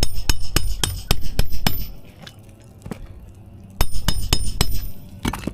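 Rapid metal-on-metal clinking strikes, about four or five a second, in two bursts: a burst of about eight at the start, then about five more after a pause, and one last one near the end. This is a metal tool at work on brittle asphalt roof shingles as they are pried loose.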